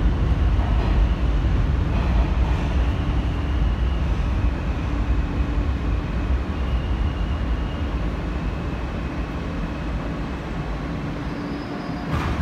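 R160 subway car running on the tracks, heard from inside the car: a steady low rumble with a faint high whine, slowly getting quieter. One sharp clack comes near the end.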